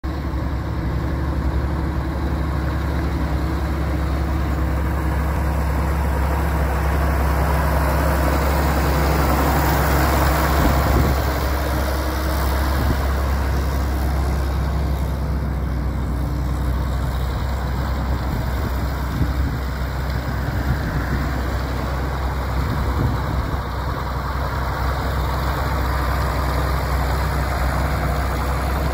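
John Deere 4230 tractor's six-cylinder diesel engine running steadily as the tractor is driven, a low drone that grows louder about ten seconds in.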